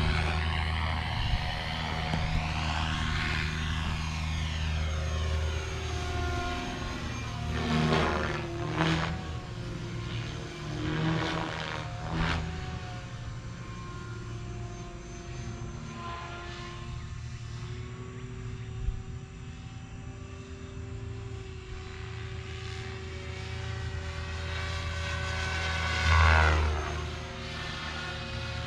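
Radio-controlled helicopter in flight, giving a steady multi-tone hum. Its pitch bends and falls on several passes, and the loudest pass comes near the end.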